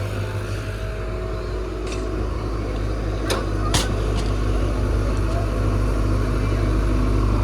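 Excavator's diesel engine running steadily, with two sharp knocks a little after three seconds in.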